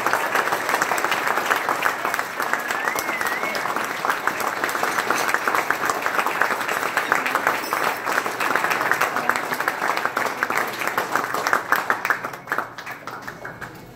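Audience applauding, with one pair of hands clapping close by. The applause dies away near the end.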